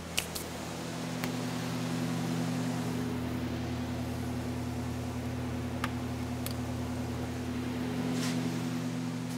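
Garage heater's blower fan running with a steady hum, still turning over after the heat has been switched off. A few faint clicks over it.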